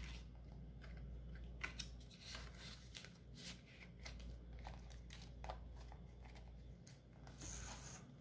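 Faint rustling and crinkling of paper banknotes and a paper cash envelope being handled, folded and tucked into a binder pocket, with scattered light clicks and a brief higher rustle near the end.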